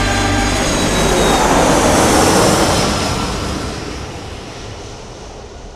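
Jet airliner flyby sound effect: a rushing jet noise that swells for about two seconds, then fades steadily away.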